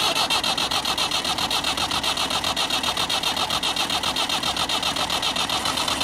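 Starter motor cranking the Massey Ferguson 290's four-cylinder diesel engine, a steady fast rhythm of pulses with no break. It is turning over after the injector lines were cracked to bleed out air that had got into the fuel system and stopped it starting.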